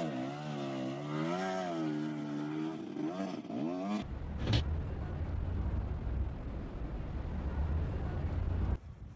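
Dirt bike engine revving, its pitch wavering up and down, for about four seconds. It then cuts abruptly to the low, steady rumble of a car driving on a wet road, with one sharp click shortly after.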